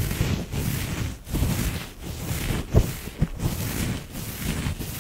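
A fuzzy mitt rubbing and brushing directly over the microphone: uneven scratchy rustling swells, with a sharp knock about three seconds in.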